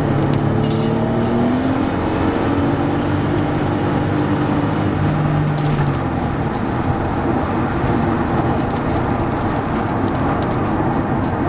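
Nissan 300ZX Twin Turbo's 3.0-litre twin-turbo V6 heard from inside the cabin, rising in pitch as the car accelerates over the first few seconds, then holding steady. From about six seconds in, steady road, tyre and wind noise dominates as the car cruises.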